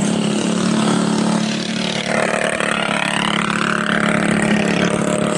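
Mini bike engines running, with one revving up and back down in the middle.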